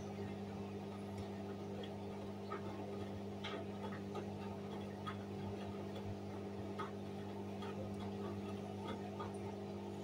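Hoover front-loading washing machine with its drum turning wet laundry: a steady motor hum under scattered light clicks and ticks as the clothes and water move in the drum.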